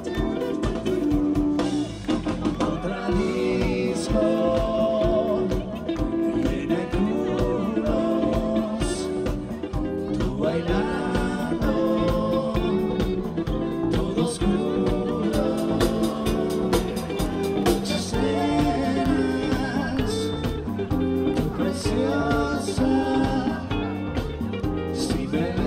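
Live band playing upbeat dance music, with electric guitar, a steady beat and singing.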